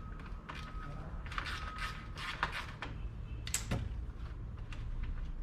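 Irregular metallic clicks and knocks of hand tools working out the bolts that hold the fan to an old car radiator.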